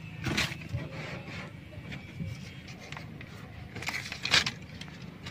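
Hands pulling dry fibres and charred debris out of a burnt seam in a wooden boat hull: scratchy rustling and scraping in a few short bursts, the loudest just after the start and about four seconds in.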